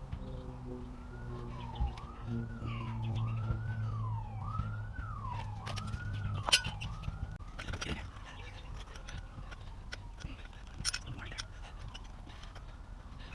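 Siren wailing, its pitch rising and falling about once a second and fading out about halfway through, over a low steady hum and a few sharp clicks.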